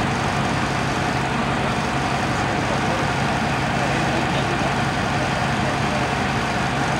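Engine idling steadily: a constant low hum under an even hiss.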